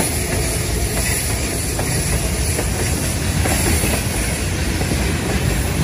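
Freight train hauled by electric locomotives, with tank wagons, passing at close range: a steady loud rumble of wheels on rails with occasional clacks at the rail joints.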